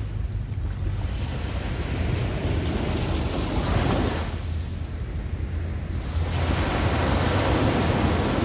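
Sea waves breaking and washing up the shore: two swells of surf over a steady low rumble.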